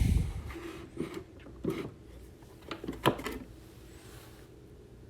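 Small metal machinist's tools being handled in a box: a rub and knock at the start, then a few scattered light clicks and knocks over the next three seconds or so.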